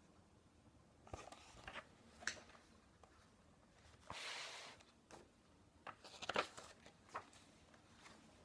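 Faint handling noise of a hardcover picture book: a few small clicks and taps, and a short rustling swish about halfway through as a page is turned, then more light clicks.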